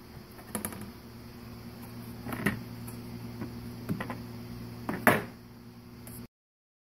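Hard plastic engine-bay battery cover being handled and pulled free, giving a few plastic clicks and knocks, the loudest about five seconds in, over a low steady hum. The sound cuts off suddenly near the end.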